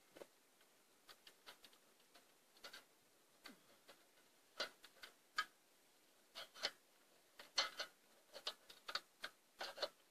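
Irregular light clicks and taps over near silence, sparse at first and coming more often and louder in the second half.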